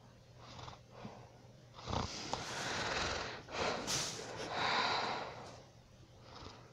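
A sleeping person snoring: three loud, noisy snores, starting about two seconds in and about a second apart.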